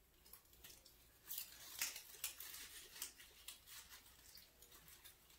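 Faint rustling and crinkling of ribbon and artificial greenery as hands work a bow's legs around to the back of a grapevine wreath, a few scattered crackles over a quiet room.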